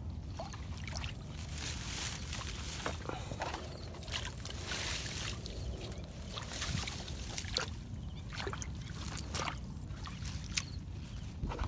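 Shallow muddy water sloshing with scattered light splashes and rustling of waterside plants, over a low steady rumble.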